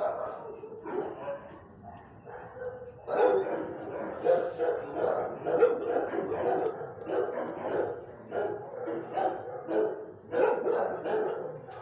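Dog barking over and over, about two barks a second, with a brief lull early in the run.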